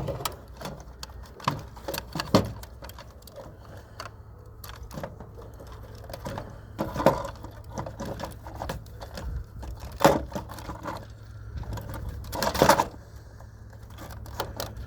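Clicks, knocks and rattles of hard plastic parts being handled and pried at while a robot vacuum is taken apart by hand, with a few louder knocks spread through, over a steady low hum.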